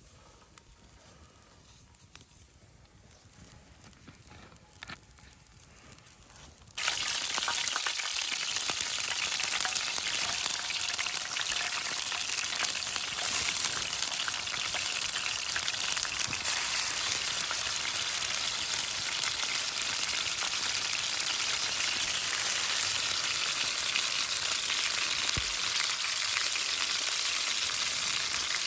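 Food frying: a steady sizzle with fine crackle that starts abruptly about seven seconds in, after a faint stretch with a few small clicks.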